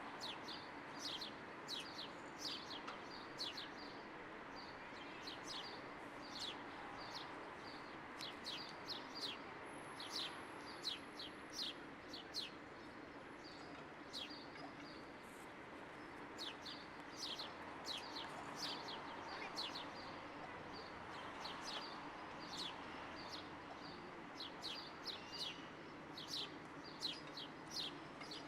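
Small birds chirping: many short, high, sharp chirps in irregular runs, over a steady background hiss of outdoor ambience. A thin, very high note is held for about two seconds around the middle.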